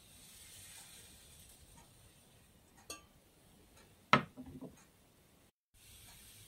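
A frying pan set down on a glass-top cooktop: one sharp clack about four seconds in, followed by a few lighter knocks as it settles, with a smaller click a second earlier.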